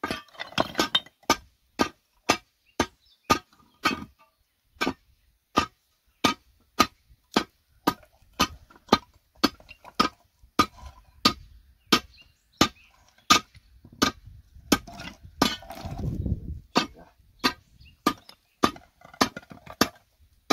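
A steel bar striking slabs of flat, layered stone over and over, about three sharp ringing blows every two seconds, splitting the stone into thinner slabs. A low rumble, like a slab shifting, comes about three quarters of the way through.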